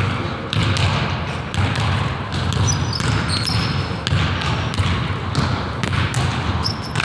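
A basketball being dribbled on a hardwood gym floor, with repeated thumps at an uneven pace, about one or two a second. Brief high sneaker squeaks come around the middle and again near the end.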